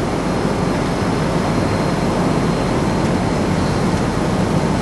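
Steady cabin noise inside a jet airliner: an even rush of engine and airflow noise, with a faint high steady tone above it.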